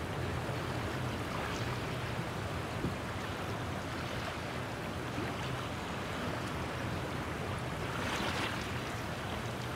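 Wind and choppy water lapping against the hull of a small sailboat, a steady rushing wash with a slightly louder surge about eight seconds in.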